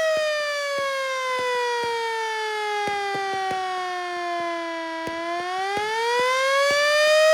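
Yahagi S-10 motor-driven siren, powered by a single-phase 2 hp electric motor, wailing with one loud steady tone. The pitch sags slowly to about half, then climbs back up from about five seconds in.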